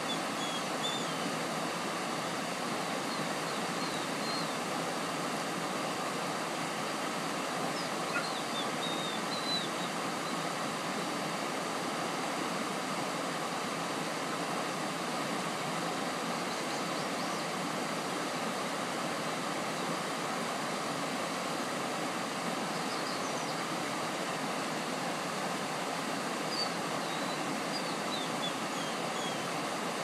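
Creek water rushing over a small cascade of rock ledges: a steady, even rush, with a few short high chirps now and then.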